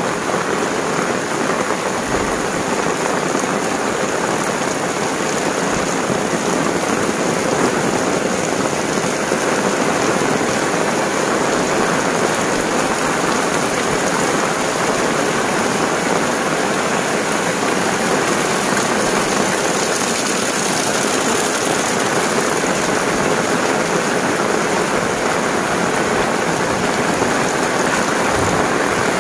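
Heavy rain falling steadily onto a wet paved lane and onto an umbrella held overhead.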